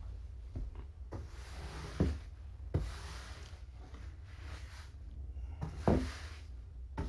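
Kittens scampering over a fabric-covered floor and cat tree: scratchy rustles of claws and paws on fabric in short bursts, with a few sharper thumps about two, three and six seconds in.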